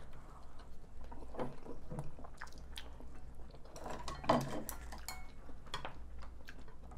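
Mukbang eating sounds: a spoon and chopsticks tapping and scraping against ceramic bowls in scattered clicks, with soft chewing. A short hum from one of the eaters comes about four seconds in and is the loudest moment.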